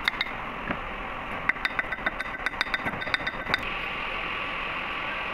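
Quick, light hammer taps with a metallic ring on a fibre gasket sheet laid over the oil filter's flange, tapping the gasket to shape. About three and a half seconds in, the tapping stops and a steady machinery hum takes over.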